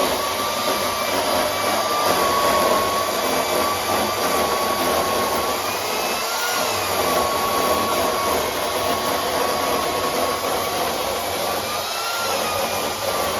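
Two-stroke chainsaw on a home-built Alaskan-style chainsaw mill running at high revs under load, ripping a camphor laurel log into slabs. Its note holds steady, with brief rises in pitch about six and twelve seconds in.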